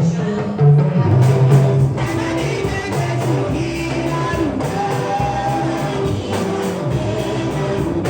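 Band music with singing, carried by a strong, steady bass line.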